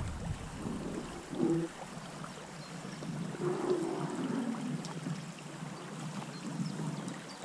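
Water gurgling and lapping around a boat drifting with a small river's current, with a few brief louder swells.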